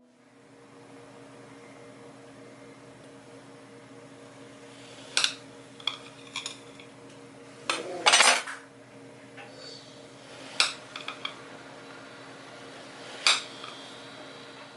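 Utensils clinking and knocking against dishes, about eight sharp clicks, the loudest a short rattling clatter midway, over a steady low hum.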